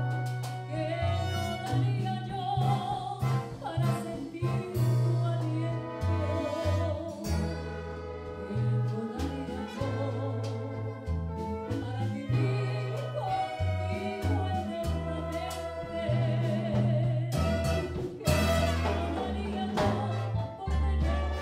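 A woman singing a bolero live with a Latin band: a stepping bass line under her voice, with keyboard and percussion (timbales and congas).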